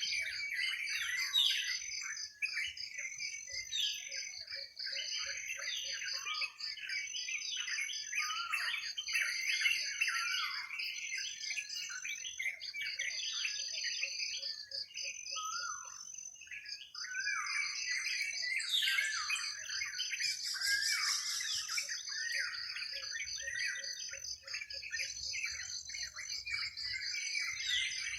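Many birds chirping and calling over one another in a forest, with a steady, rapidly pulsing high insect trill underneath. A few short series of quick, lower-pitched notes recur now and then.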